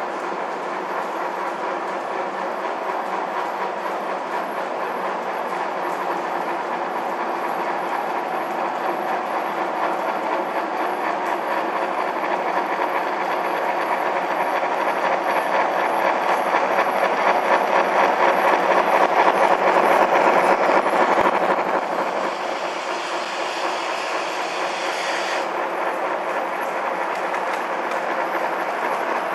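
Two gauge 1 (1:32) BR 85 model steam locomotives running double-headed with an express train, a steady clattering of wheels on the track that swells as they draw near and is loudest about two-thirds of the way through, then drops back.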